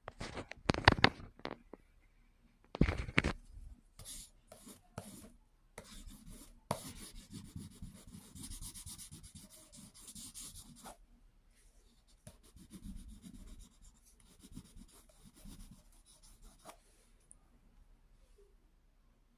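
Dry, scratchy rubbing on sketchbook paper, coming and going, after a few loud knocks from handling in the first three seconds.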